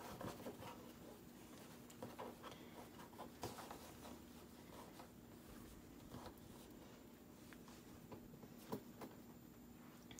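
Faint rustling of cotton fabric and bias tape with small scattered clicks and taps as the bias tape is pinned along the edge of a quilted mat, over a faint steady low hum.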